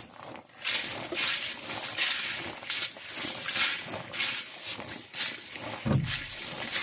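Footsteps rustling through a carpet of fallen leaves on a wet forest trail, about two steps a second, with a dull low thump near the end.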